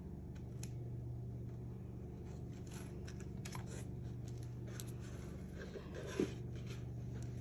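Small handling sounds: light clicks and crinkling of plastic sticker packets as hands move nail pieces around a practice hand, with a short knock about six seconds in, over a low steady electrical hum.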